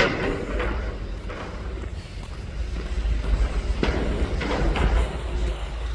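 Peterbilt McNeilus front-loader garbage truck's engine running with a low rumble that swells in the middle, with a few sharp clanks about four seconds in.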